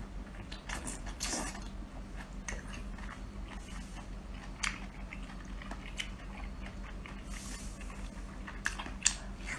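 A man eating small shellfish: wet chewing and sucking mouth sounds, with a few sharp clicks scattered through.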